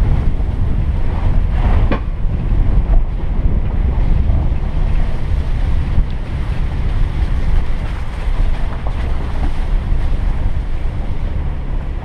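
A 4x4 driving slowly over a rutted dirt and rock trail: steady low rumble of engine and tyres, with wind buffeting the microphone. A short sharp noise about two seconds in.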